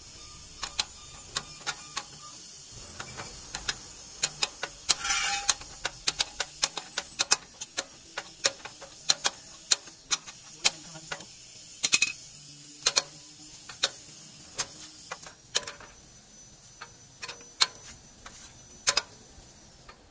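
Hand ratchet clicking in short, uneven strokes as it turns the nut on a truck's tie rod end ball stud, with a few louder metal knocks.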